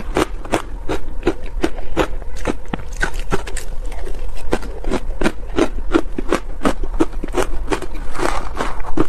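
Mouthful of shaved ice being crunched and chewed close to clip-on microphones, a rapid steady run of crisp crunches about four a second.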